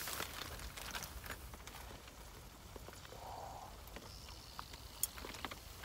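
Faint handling noise of camp cooking gear: scattered light clicks and taps, with a brief soft rustle about three seconds in.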